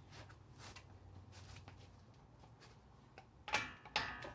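Faint handling noises, then two sharp metallic clinks about half a second apart near the end, from hand tools and metal parts being handled during front brake and hub bearing work.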